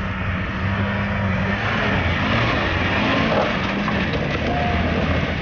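Land Rover Discovery 4x4's engine working under load as it crawls up a steep, rocky slope. Its note rises and falls a little in the middle, over a steady hiss.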